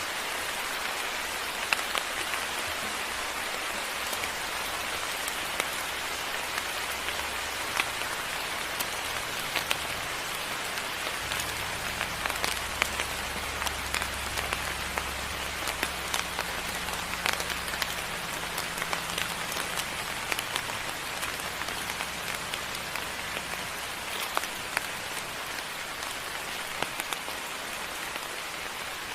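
Steady moderate rain falling, with many individual drops ticking sharply on a nearby surface.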